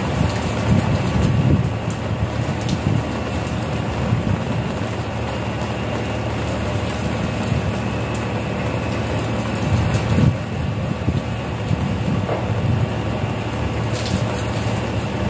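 Fishing boat's motor running with a steady hum and hiss, with a few soft knocks about a second in and again near the ten-second mark as a caught fish is handled on the wooden deck.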